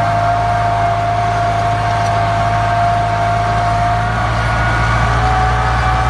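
Steyr 8073 tractor's diesel engine running steadily under load while pulling a plough through the soil, with a steady whine over the engine that rises slightly about four seconds in.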